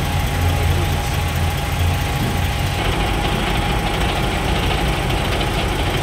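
Semi-trailer refrigeration unit's engine running just after being started with its button. About two and a half seconds in, the low hum fades and a higher, rushing noise takes over.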